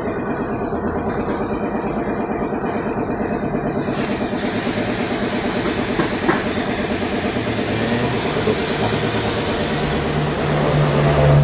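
A motor or engine running steadily with a fast, even pulse, its low hum growing a little louder near the end.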